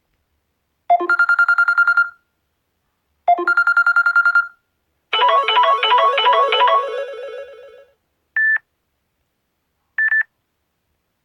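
Samsung Galaxy S6 edge+ ringtone sounds: two bursts of a rapid electronic trill, like an old telephone bell at about ten pulses a second, then a short melodic chime figure that fades away, then two short single beeps.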